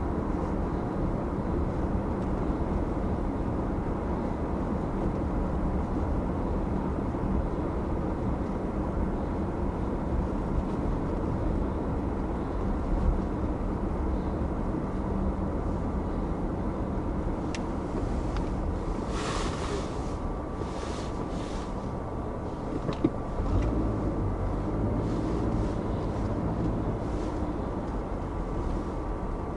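Car driving slowly down a residential street: a steady rumble of engine and tyre noise on the road.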